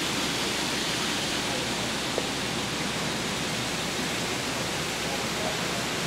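Steady, even rushing noise, like running water or air, with a single faint click about two seconds in.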